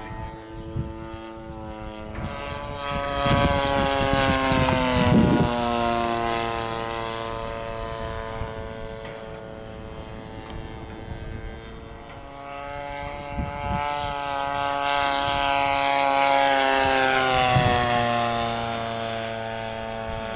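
Engine and propeller of a radio-controlled model warbird in flight, droning steadily. It swells twice as the model passes close, and the pitch drops a little after each pass.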